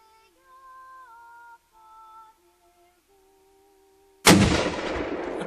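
A single loud gunshot about four seconds in, with a long rolling echo after it. Before it, faint sustained notes that step up and down in pitch, like soft background music.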